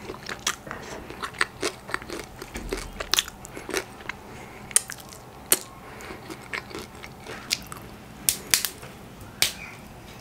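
Close-miked chewing and wet mouth smacks from eating crab meat and crab fat in Cajun sauce, heard as an irregular run of sharp clicks.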